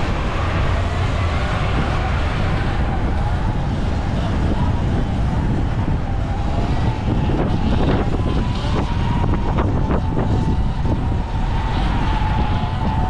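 Wind rushing over the microphone on a moving Sur-Ron electric dirt bike, with a thin motor whine that rises a little in pitch over the first several seconds and then holds steady.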